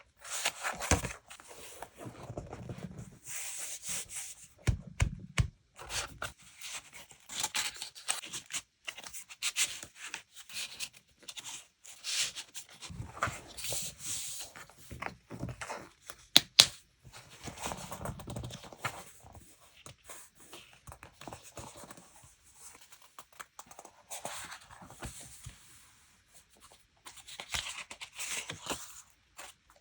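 Hands handling paper journaling supplies, with irregular rustling, scraping and crinkling, and light taps and clicks. The sharpest click comes a little past halfway.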